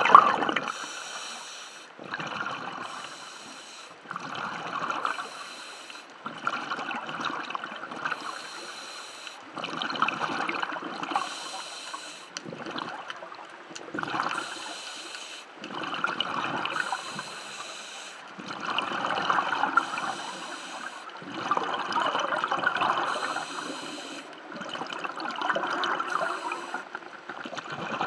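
Scuba diver breathing through a regulator underwater: a hissing draw on each inhale and a gurgling rush of exhaled bubbles, one breath every two to three seconds in a steady rhythm. A sharp knock at the very start.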